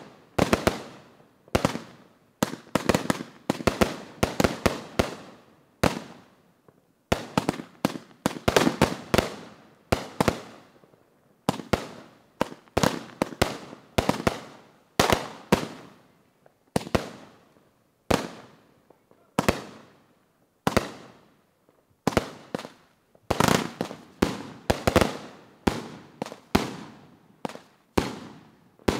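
Consumer aerial fireworks firing in quick succession: an uneven string of sharp bangs, often several in a rapid cluster, each trailing off in a short echo.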